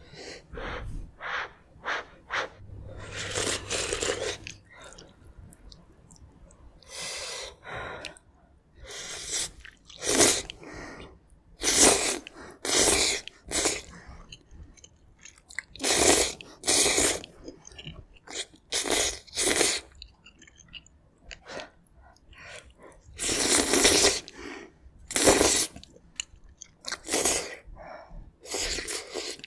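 Close-miked slurping of thin noodles out of a spicy broth, in repeated bursts of about a second each, with wet chewing in between.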